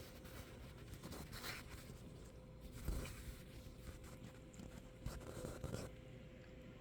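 Faint scratchy rubbing in three short bursts, the sound of a nose being rubbed hard against something, as in excessive nose rubbing.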